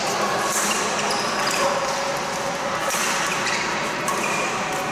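Badminton rally in a large sports hall: a few sharp racket hits on the shuttlecock, over the echoing hubbub of players and voices from the surrounding courts.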